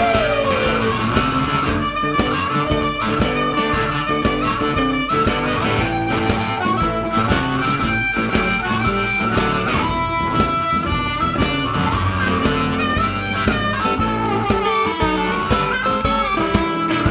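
Amplified blues harmonica taking a solo, cupped in both hands against a hand-held microphone, with bent notes (one slides down near the start). A band backs it with guitar and a steady beat.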